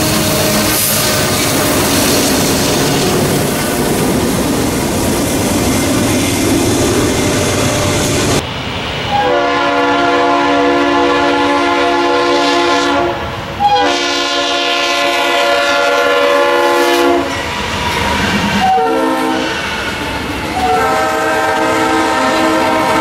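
A diesel freight locomotive passing close, its engine and steel wheels on the rails making a steady, noisy rumble. After a cut, a distant approaching freight's multi-note air horn sounds two long blasts, a short one and another long one: the standard grade-crossing signal.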